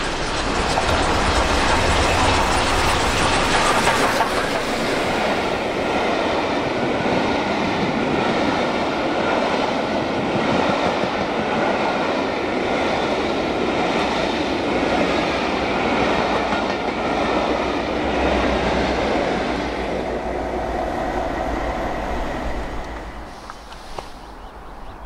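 LNER A1 Pacific steam locomotive 60163 Tornado running through a station without stopping, loudest as the engine passes in the first few seconds, followed by its train of coaches clattering along the rails. The rumble drops away sharply about 23 seconds in.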